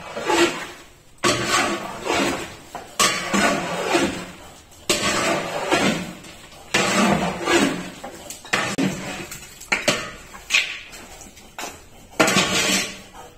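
Long metal spatula scraping and knocking against the side of a large aluminium cooking pot as raw beef is mixed with spices, in repeated strokes about every one and a half to two seconds.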